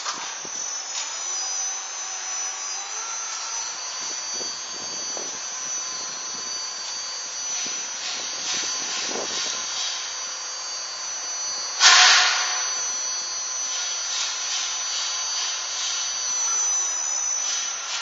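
A steady high-pitched machine whine of several tones at once, bending in pitch near the start and near the end, over a noisy haze with scattered knocks; a loud rush of noise breaks in about twelve seconds in.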